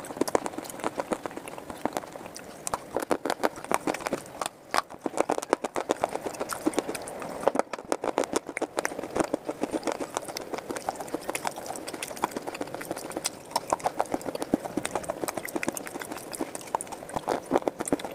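Close, crisp crunching and chewing of hard, brittle grey slate and clay pieces, a dense run of sharp cracks several times a second.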